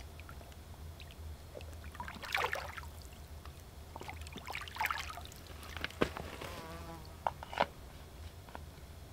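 Hands dipping and splashing in the shallow edge of a still lake, two short bouts of splashing, followed by a few sharp knocks near the end.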